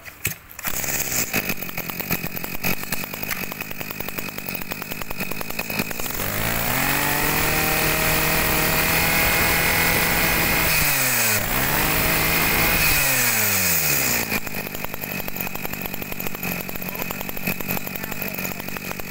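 Shingu 323 chainsaw's 32cc two-stroke engine idling, then revved up to a high steady pitch about six seconds in, dipping briefly and rising again, and dropping back to idle about fourteen seconds in.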